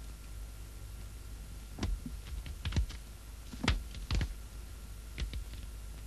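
Scattered light clicks and taps, irregular and a few at a time, over a steady low hum.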